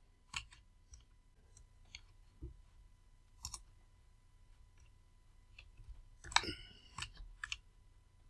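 Scattered light clicks of a computer mouse and keyboard as a Blender scene is navigated and objects are selected, with a louder cluster of clicks about six seconds in.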